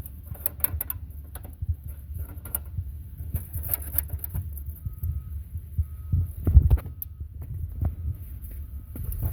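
Steady low rumble with irregular knocks and clatter, louder for a moment in the second half, and a faint broken tone in the middle.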